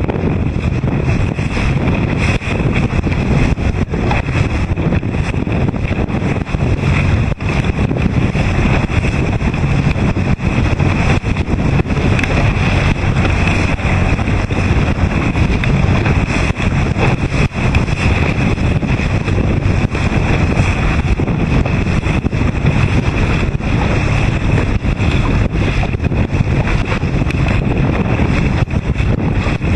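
Strong wind buffeting the microphone, steady and loud, over the rush of choppy water and the low drone of the camera boat's engine.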